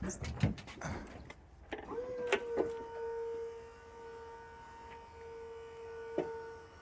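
A few knocks, then a small electric motor starting about two seconds in with a brief rise in pitch and running on as a steady whine.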